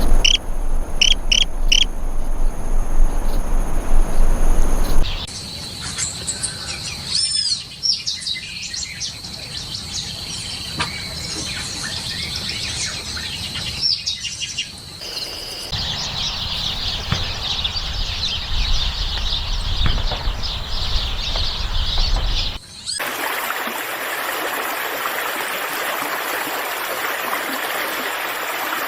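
Wild birds calling and chirping in short repeated notes over a steady high insect drone, in a string of separate field recordings cut one to the next. In the last few seconds this gives way to a dense, steady chorus of calling animals.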